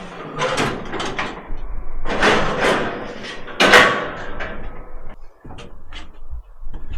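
A door sliding and rattling in several loud scraping pushes, followed by a few light clicks and knocks.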